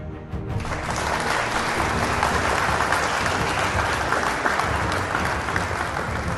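Audience applauding over background music; the applause swells in about half a second in.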